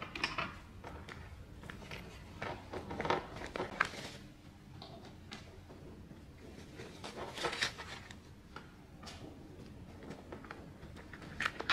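Things being packed into a fabric handbag on a wooden table: rustling, with scattered soft knocks and clicks as a wallet and phone go in.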